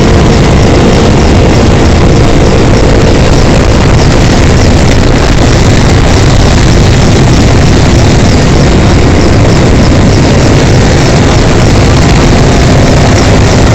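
Helicopter engine and rotor noise, loud and steady, with a constant hum running through it.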